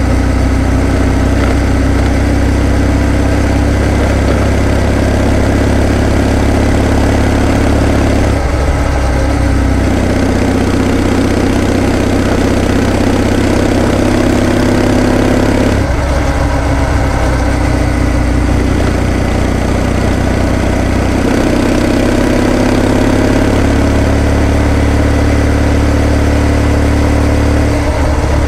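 Kawasaki W650 air-cooled parallel-twin motorcycle engine running steadily while riding. The engine note breaks and changes pitch about 8 and 16 seconds in, and shifts again a little past 20 seconds.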